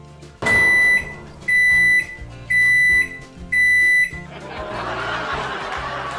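Microwave oven beeping four times, about once a second, with one steady high tone: the end-of-cycle signal that the heating is done, the display at 0.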